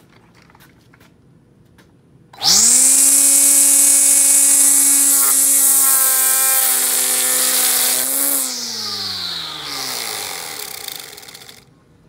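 Kobalt 40-volt cordless string trimmer starting abruptly, its electric motor and spinning head quickly rising to a steady high whine with a loud whirring hiss. About eight seconds in it falls in pitch and winds down, coasting to a stop just before the end.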